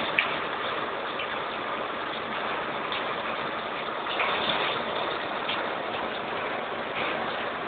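Steady rain falling: a continuous hiss, with a few sharper drop taps standing out now and then.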